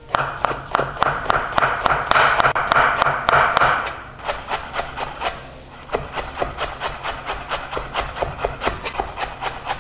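Chef's knife rapidly chopping a tight bundle of fresh coriander on a wooden cutting board: quick, even knife strikes on the board, several a second, with the crunch of leaves and stems. It eases off for a moment near the middle, then carries on at a slightly slower, steady pace.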